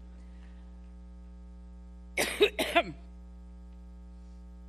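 A woman coughing twice in quick succession about two seconds in, part of a coughing fit that interrupts her speech, over a steady electrical hum.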